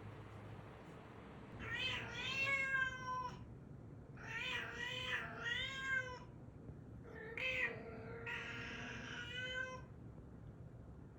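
Domestic cat meowing about five times in a row: one long meow, two close together, then two more, each bending in pitch.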